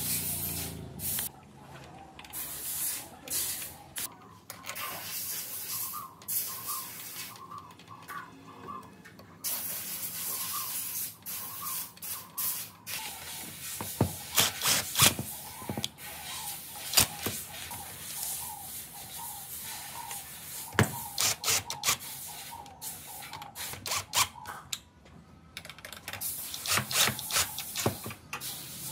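Repeated bursts of hissing, each lasting a second or a few, with sharp clicks and knocks of tools and parts being handled in between.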